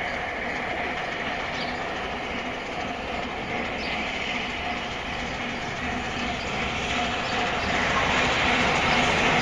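LNER A4 Pacific steam locomotive working hard as it approaches, a steady noise that grows louder toward the end.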